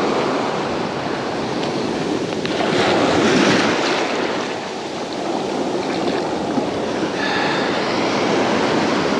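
Ocean surf breaking and washing up the sand, a steady rush of water with one wave surging louder about three seconds in as the foam washes around the legs.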